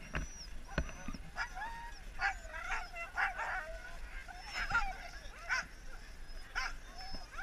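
Harnessed sled huskies whining and yelping, many short calls rising and falling in pitch and overlapping one another.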